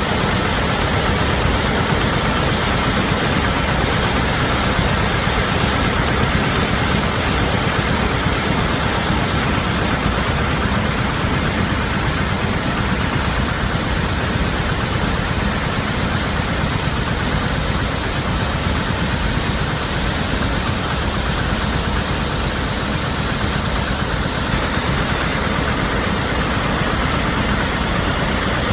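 Waterfall: water pouring and splashing in a loud, steady rush with a deep rumble underneath.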